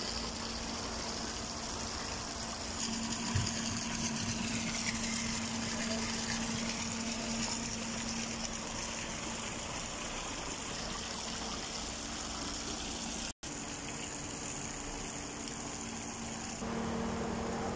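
A sheet of water from a pool water-curtain feature pouring steadily into a swimming pool, over a constant low hum. The sound cuts out for an instant about 13 seconds in.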